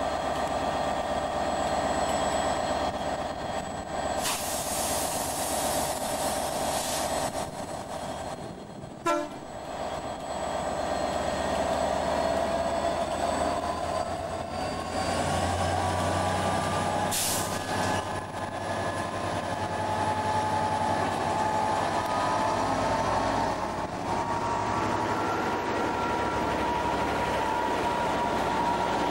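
Class 67 diesel locomotive, with its EMD two-stroke V12, running at the head of a passenger train, then powering up to pull away, its engine note rising and settling at a steadier, higher pitch as it draws past.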